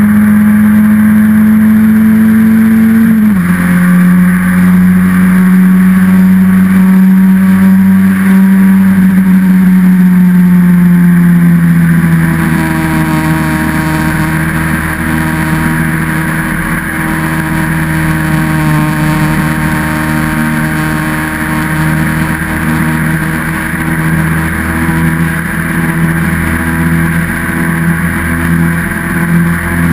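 Austin Seven single-seater racing car's four-cylinder engine running hard under load, heard from onboard the car. Its pitch drops sharply about three seconds in, then sags slowly. About twelve seconds in it drops again and gets a little quieter, then holds a steady, slightly pulsing note.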